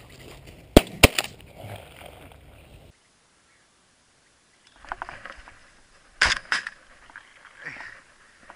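Shotgun fired twice in quick succession, two sharp, very loud cracks about a quarter second apart, a little under a second in. After a break, two more quick shotgun cracks, somewhat fainter, come a little past the middle.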